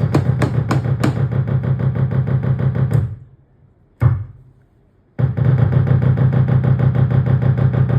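M-Studio MSP 20 Pro electronic instrument playing a fast, evenly repeating drum-like rhythm with a heavy low pulse. It stops about three seconds in, gives a single hit about a second later, then starts again.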